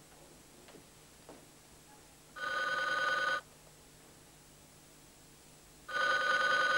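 Mobile phones played as an orchestra sound two steady electronic ringtone notes, each held about a second. The first comes about two and a half seconds in and the second near the end, with a hush before and between.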